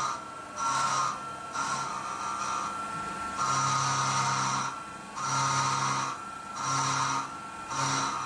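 Syil X7 CNC mill dry-cutting cast iron with a roughing end mill. The cutting sound comes and goes in repeated bursts of about half a second to a second and a half, each a steady hum with a high whine over it, with quieter gaps between.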